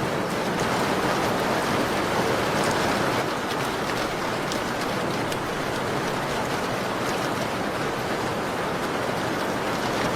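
Steady rain pattering on a window pane, a continuous even hiss with scattered sharp drop ticks.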